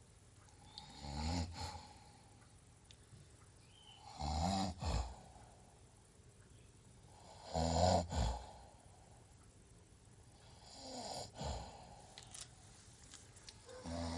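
Strange-sounding snoring: four snores about three and a half seconds apart, each ending in a sharp click.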